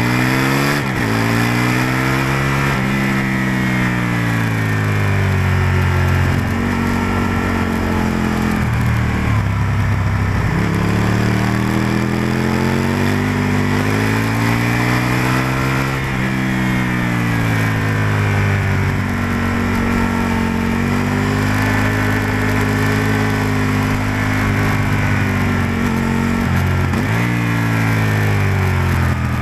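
Onboard sound of an Aprilia RSV-R's V-twin engine at speed on track. Revs rise under acceleration and fall away when the throttle is shut for the corners, several times over, with a steady rush of wind and road noise.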